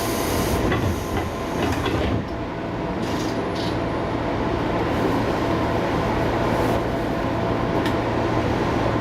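JR 205 series electric commuter train running on the rails, heard from inside the leading car: a steady motor and gear hum over the rolling rumble, with a few clicks from rail joints in the first couple of seconds.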